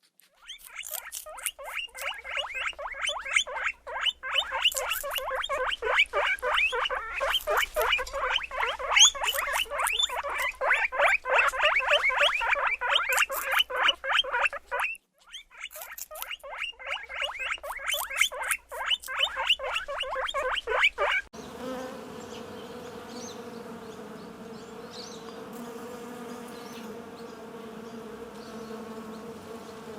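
Insects: a dense, rapid chirring of many quick pulses, breaking off briefly about halfway through, then changing about two-thirds of the way in to a steady, low buzzing hum.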